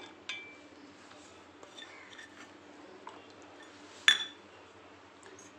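Stainless steel mixer-grinder jar clinking as garlic cloves and ginger go in: a few light taps near the start, then one sharp clink with a short metallic ring about four seconds in.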